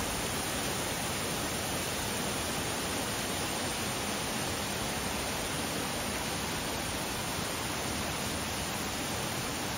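Waterfall rushing: a steady, unbroken roar of falling water with no change in level.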